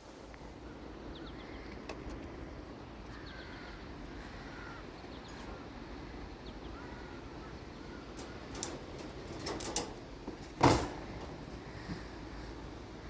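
Steady background noise with a few faint calls. A few sharp clicks come around nine to ten seconds in, and a single loud, sharp knock follows about ten and a half seconds in.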